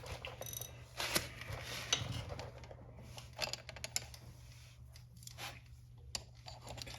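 Scattered light metallic clicks and knocks as a chain press tool and link plate are handled and fitted onto a motorcycle drive chain, over a steady low hum.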